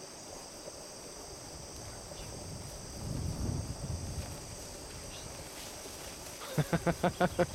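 Steady high-pitched insect chirring over a pasture, with a low rumble swelling briefly about halfway through. Near the end, a loud rapid string of pulsed calls, about six a second, cuts in and becomes the loudest sound.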